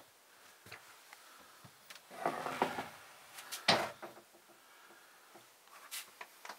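Wooden cabin door being opened: a scraping rustle about two seconds in, then a single sharp click, followed by a few faint knocks.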